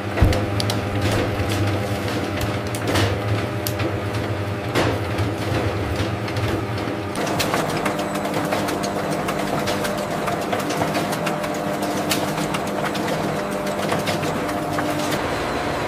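Industrial meat grinder running as it grinds chicken meat: a steady mechanical hum with scattered sharp clicks, its tone shifting a little about seven seconds in.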